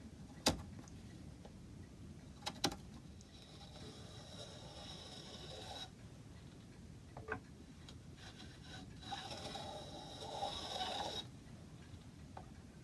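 Shoulder plane cutting along an oak moulding in two long scraping strokes, rounding over a bead. Short knocks from the plane being set down and handled come before and between the strokes.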